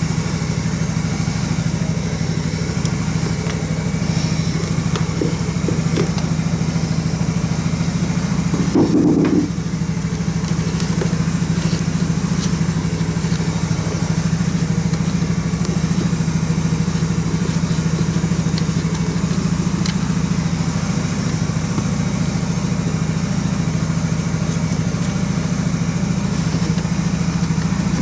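Motorcycle engines idling steadily as they warm up, with light clicks and one brief louder clunk about nine seconds in.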